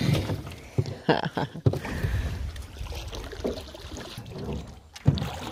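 Oar paddling through lake water from a small rowboat, with uneven splashing and swirling, broken by a few sharp knocks, one near the end.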